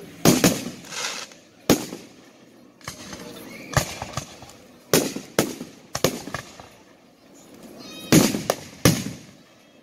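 Aerial fireworks launching and bursting overhead: an irregular series of sharp bangs, some half a second and some a second or more apart, each with a short echo. The loudest come near the start and about eight seconds in.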